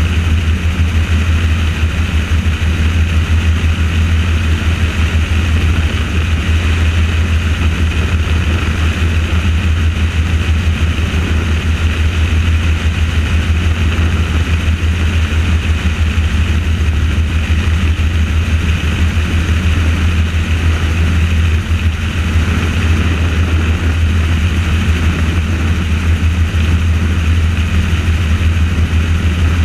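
Helicopter in flight, heard close up: the loud, steady, fast beat of the rotor blades over the engine and rushing air, unchanging throughout.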